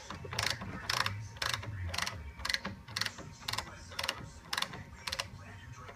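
Ratchet wrench clicking about twice a second as bolts are tightened down and torqued.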